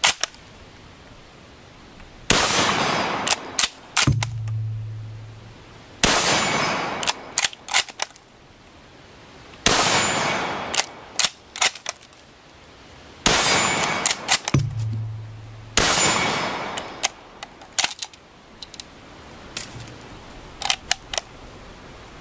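Lee-Enfield No. 4 rifle in .303 British fired five times, roughly every three to four seconds, each shot ringing out for about a second. Quick metallic clicks follow each shot as the bolt is worked.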